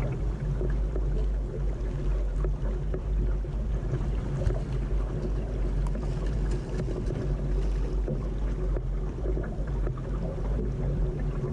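Steady wash of water along the hull of a Laser sailing dinghy under sail, with wind buffeting the microphone and a few small knocks and ticks.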